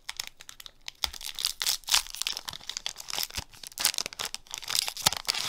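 Foil wrapper of a Yu-Gi-Oh booster pack being torn open and crinkled by hand, a run of irregular crackling rustles.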